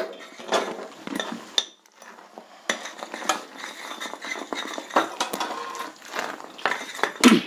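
A spoon stirring and scraping in a pan of thick syrup cooked to the ball stage, with irregular clinks of the spoon against the pan.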